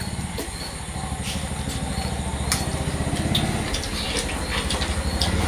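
A motor engine running steadily with a low pulsing rumble that grows a little louder toward the end, with scattered sharp clicks over it.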